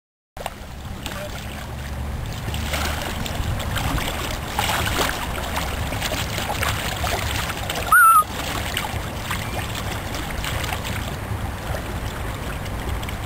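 A single coracle paddle dipping and splashing in river water in irregular strokes, over a steady low rumble. About eight seconds in there is one brief, loud, high-pitched sound.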